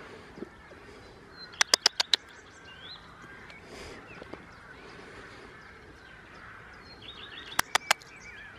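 Birds chirping faintly in the background, broken by two quick runs of sharp clicks: about five in a row a second and a half in, and two or three near the end.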